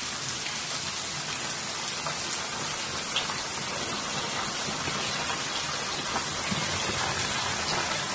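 Heavy rain falling steadily on garden shrubs and leaves, with a few sharper close drop hits, one about three seconds in.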